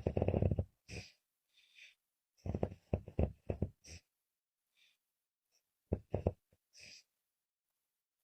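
A woman snoring with a rough, fluttering rattle on the breath out and in, in three bouts about three seconds apart with soft breaths between. The uploader hears it as a struggle to breathe.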